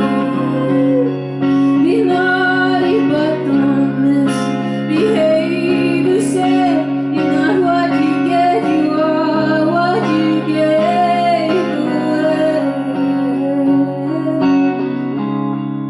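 A woman singing live over sustained guitar chords, in a solo performance.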